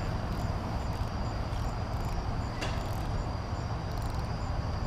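Insects chirping in a high, even trill, with a short pulse repeating about twice a second, over a low rumble. One brief click a little after halfway.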